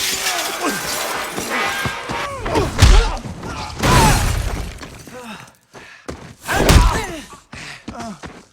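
Movie fight sound effects: three heavy body-blow impacts with crashing, shattering debris, mixed with grunting and groaning. The hits come about three, four and seven seconds in.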